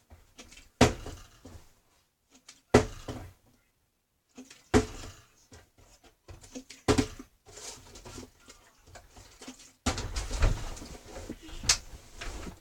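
Partly filled plastic water bottle thudding down on a hard surface again and again, about every two seconds, as flips are tried, with handling noise between the landings.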